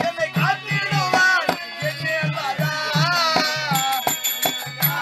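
Therukoothu folk-theatre accompaniment: a wavering melody over a steady hand-drum beat of about two to three strokes a second, with a high metallic ringing joining in time about four seconds in.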